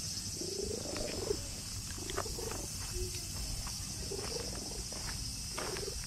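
A cat purring and giving several short, chirping meows as it is stroked.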